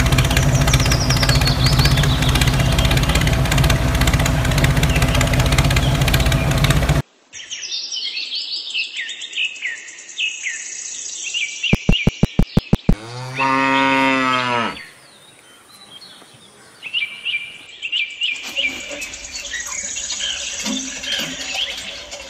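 A tractor engine running steadily, cut off suddenly about seven seconds in. Birds chirp, then comes a quick run of about seven clicks and a single long cow moo. Birds chirp again near the end.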